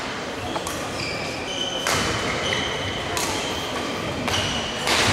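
Badminton rally in an echoing sports hall: rackets striking the shuttlecock several times about a second apart, with shoes squeaking on the court floor between shots.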